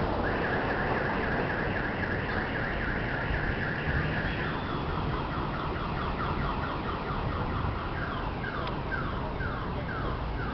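Car alarm sounding on a moving car. It starts as a fast steady-pitched warble, then about four and a half seconds in switches to a repeated falling tone about twice a second, over the low rumble of the car driving.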